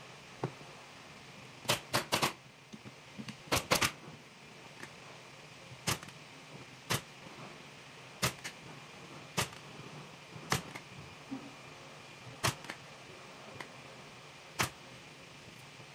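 Pneumatic upholstery staple gun firing staples into a wooden frame to fasten fabric: sharp shots, some single, some in quick groups of two or three, about fourteen in all at irregular intervals. The loudest groups come about two and four seconds in.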